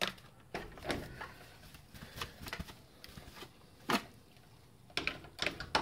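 Small engine parts handled on a workbench: a ball bearing and seal picked up and set down, giving scattered light clicks and knocks, the sharpest about four seconds in.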